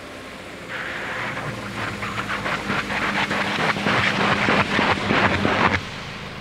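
Subaru SUV on Nokian Hakkapeliitta R2 winter tyres driving over an ice road: a steady engine hum under tyre noise on the ice. The tyre noise grows louder and crackly as the car comes close, then drops off sharply near the end.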